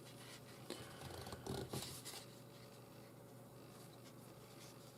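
Nylon paracord strands being pulled through a braided bracelet, faint rubbing and scratching, with a few short scrapes in the first two seconds and then only faint room sound.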